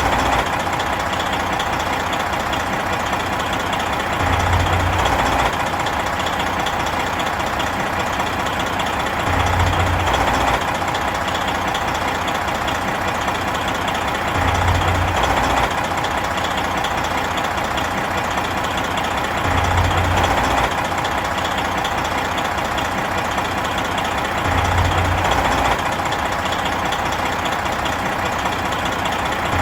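Big truck's diesel engine idling steadily, with a deeper low swell about every five seconds.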